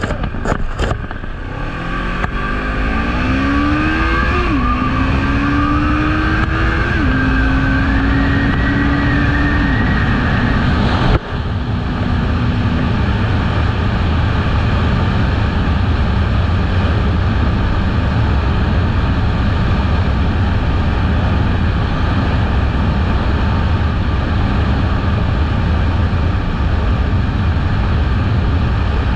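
Kawasaki Eliminator 500's parallel-twin engine accelerating, its pitch climbing and dropping at two upshifts, then holding steady at cruising speed. A loud steady low rumble of wind on the microphone soon covers the engine.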